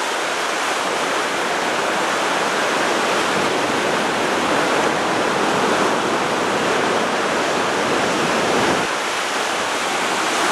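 Turbulent whitewater churning out below a dam spillway: a loud, steady rush of falling water, like a big, heavy waterfall.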